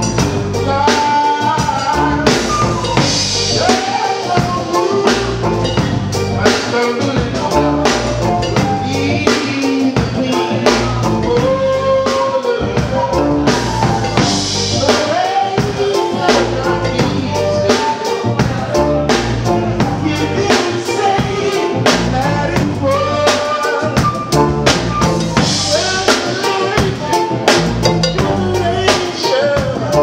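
Live reggae band playing a steady groove, with a drum kit (snare rimshots and kick drum) keeping an even beat under electric guitar and melody lines.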